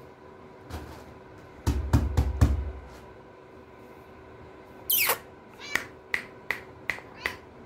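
A cluster of heavy dull thumps, then a house cat meowing: one falling cry followed by five short meows, about two or three a second.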